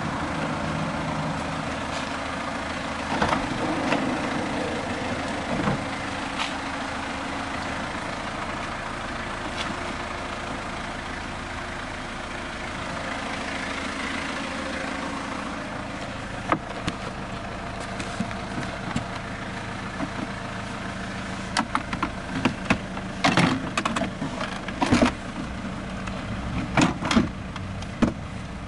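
Steady low hum of the van's 2.5-litre turbo-diesel engine idling. In the second half, sharp clicks and knocks from hands handling the interior plastic trim and a door handle.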